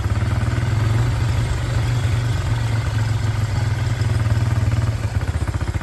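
Mitsubishi Pajero Sport's engine running at low revs as the SUV crawls along a dirt track, a steady, low, evenly pulsing throb.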